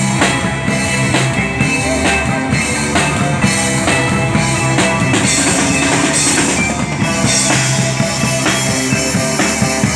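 Live rock band playing an instrumental passage: distorted guitars and bass over a steady drum-kit beat, with no singing.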